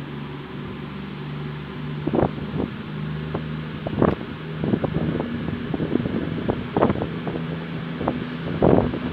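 CrossCountry Voyager diesel multiple unit approaching along the platform, its underfloor diesel engines humming steadily. Irregular clicks and knocks start about two seconds in and grow more frequent.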